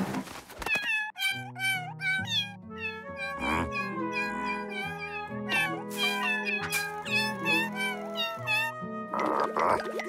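A cartoon cat character's wordless, high-pitched meow-like chatter, a quick string of short gliding syllables, over background music with held low notes.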